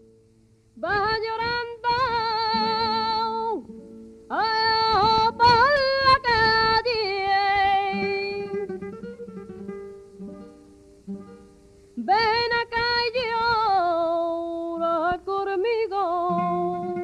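Soundtrack music: a flamenco singer holding long, wavering wordless lines, sung as three phrases over acoustic guitar.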